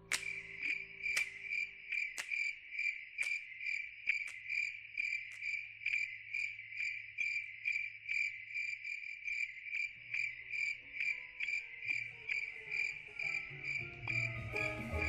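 A cricket chirping steadily, about two short high chirps a second. Music begins to come in near the end.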